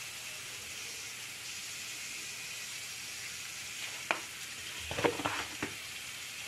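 Chopped green beans frying in coconut oil in an aluminium kadai: a steady sizzle. A sharp click about four seconds in, then a few short knocks about a second later.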